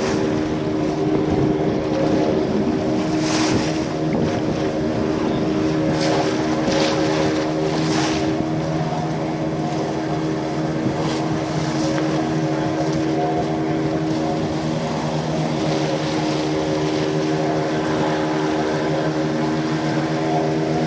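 Motor of a small open tourist boat running steadily at cruising speed, with water rushing along the hull and a few louder splashes.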